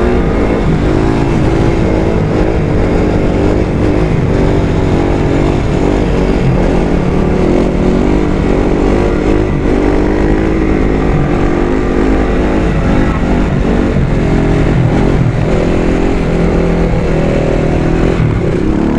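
Supermoto motorcycle engine running under way with two riders aboard. Its pitch rises and falls several times as the throttle and gears change.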